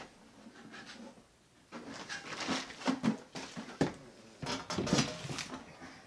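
Irregular clatter, knocks and scrapes from a sheet-metal return-air box with a round 8-inch duct collar being handled and pushed up into an opening cut in a drywall ceiling. The handling is quiet for the first second or so and busy after that.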